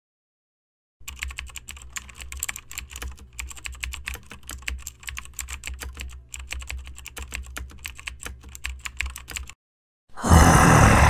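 Rapid, irregular clicking and tapping from a kitten batting at the pop-up mouse pieces of a wooden whack-a-mole cat toy, over a low steady hum. The clicking starts about a second in and stops shortly before a loud rushing noise begins near the end.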